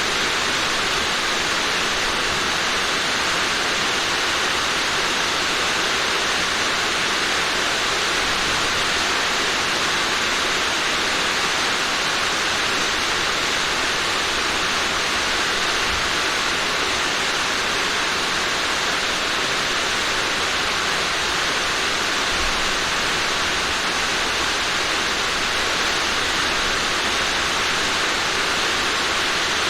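Steady rain falling on a roof, an even hiss that does not let up.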